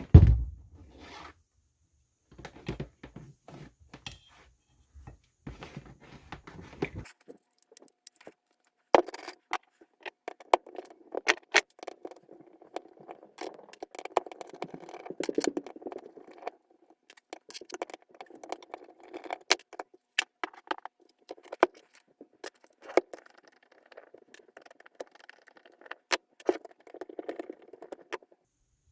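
Hands working on a JobMate 4.5-inch angle grinder during disassembly: a thump at the start, then small metal parts and tools clicking, scraping and rattling, with many sharp clicks throughout.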